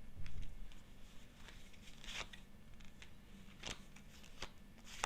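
Tarot cards being handled on a table: a few faint, brief swishes and taps as cards are slid and turned over.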